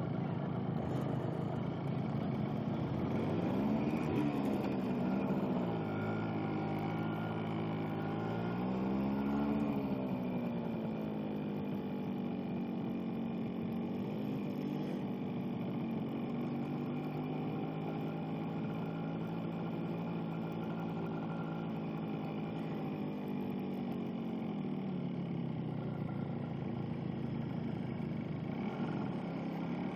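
Small two-stroke motorcycle engine on the move, its pitch climbing and falling twice as it pulls away, then running steadily before easing off and picking up again near the end.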